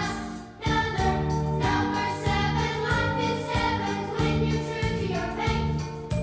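Music with a choir singing and jingling bells over a steady beat, briefly dropping away about half a second in.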